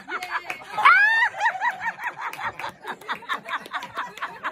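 A small group laughing hard, led by a high-pitched laugh of quick rising-and-falling 'ha' pulses that peaks about a second in, then runs on as rapid chuckling.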